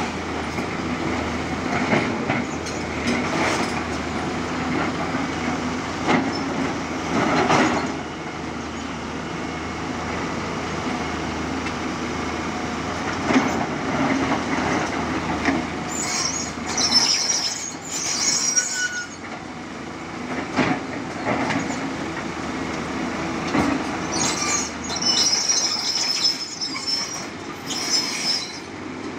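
Tata Hitachi crawler excavator digging broken rock: its diesel engine runs steadily under load while the bucket knocks and scrapes through the stone. High squeals come in about halfway through and again near the end.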